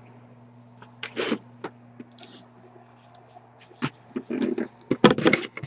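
Handling noise as a live-stream camera is picked up and repositioned: scattered scrapes, knocks and rustling, with a short cluster about a second in and a denser run of knocks near the end. A steady low electrical hum sits underneath.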